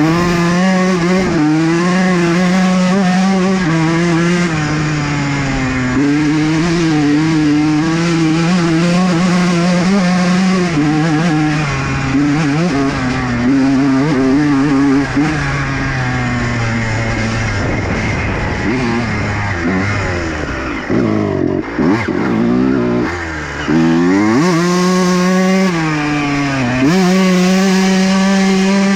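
Honda CR125 two-stroke single-cylinder dirt bike engine run hard at high revs. Around the middle the revs fall away and climb back up several times before it is held high again.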